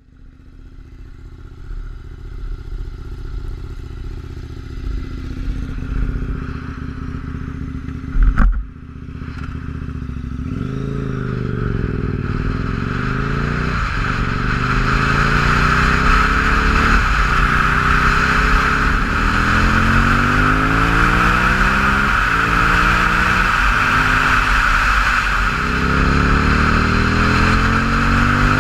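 2006 KTM 950 Supermoto's V-twin engine, breathing through an open MIVV exhaust with no dB-killers, running steadily at low revs, with one loud thump about eight seconds in. The bike then pulls away and accelerates up through the gears, the revs climbing and dropping at each shift, as wind noise builds.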